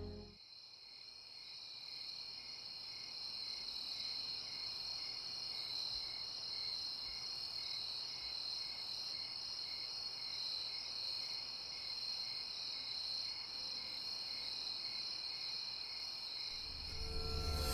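Crickets chirping as a night-time ambience: a steady high trill with a softer chirp pulsing about twice a second, fading in at the start.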